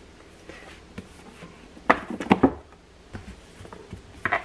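Paperback books being handled and moved on a wooden bookshelf: soft rustles with a few knocks about two seconds in and again near the end.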